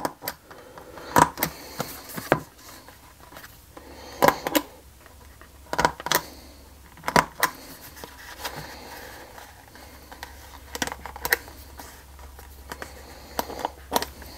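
Irregular short clicks and taps from a pointed hand punch being pushed through the leather wrapping of a Kydex holster to open pre-drilled holes, with the holster handled between strokes. A low steady hum runs underneath.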